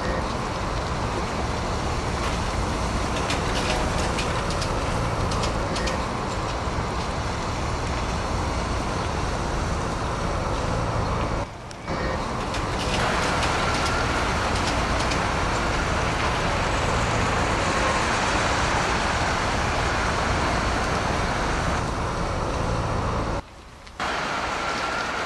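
Steady road-vehicle running noise with a faint hum. The sound drops out sharply for about half a second twice, once about halfway through and once near the end.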